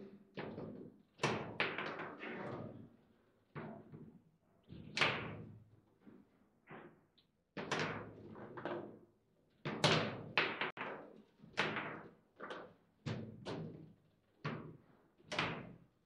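Table football (foosball) in play: irregular sharp knocks and clacks as the ball is struck by the players' figures on the rods and knocks around the table, some hits much louder than others.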